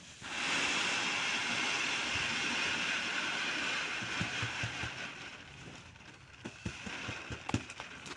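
Wheat grain pouring out of a sack onto a reed winnowing tray: a steady rushing hiss that starts suddenly, then thins out about five seconds in. A few knocks and taps follow as the tray and scoop are handled.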